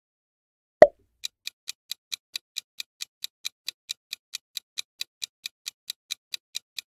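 Quiz countdown-timer sound effect: one short, loud hit under a second in, then steady clock-like ticking at about four to five ticks a second for about five and a half seconds.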